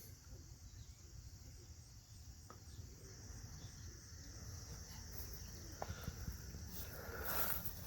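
Insects chirring steadily in a high, even drone, over a low outdoor rumble, with a brief louder rustle near the end.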